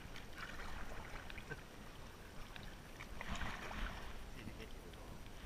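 Faint water swishing and lapping around a plastic kayak being paddled on calm open water, with two louder swishes, one within the first second and one a little past three seconds in.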